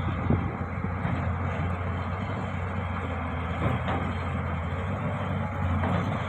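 Diesel engine of a heavy earthmoving machine, an excavator or bulldozer, running steadily, with a couple of brief knocks.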